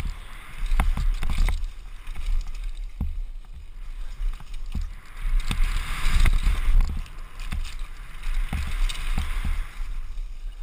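Mountain bike running fast down a dirt trail, heard from a helmet camera: a continuous uneven rumble of wind on the microphone and tyres on dirt, broken by many sharp knocks and rattles as the bike hits bumps.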